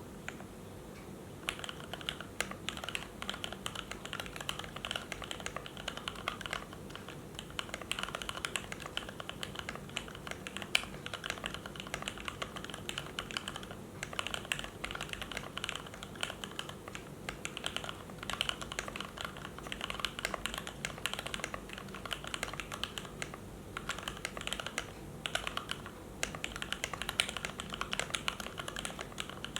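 Typing on a KBD75 mechanical keyboard in a stacked acrylic case with an acrylic plate and foam inside, fitted with lubed and filmed Cherry MX Black Hyperglide linear switches. Quick, uneven keystrokes start about a second and a half in and carry on with a few brief pauses.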